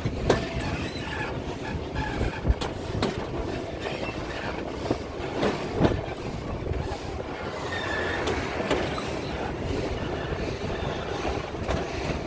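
Narrow-gauge steam train's passenger carriages rolling along the rails: a steady rumble with irregular clanks and clicks from the wheels and couplings, and a short wheel squeal about eight seconds in.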